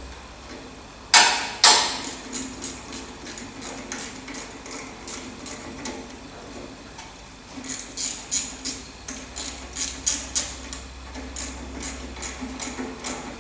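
Light metal-on-metal tapping and clicking from hand work on a tractor's throttle linkage: two louder knocks about a second in, then a run of short sharp taps, roughly three to four a second, that pauses briefly mid-way and picks up again.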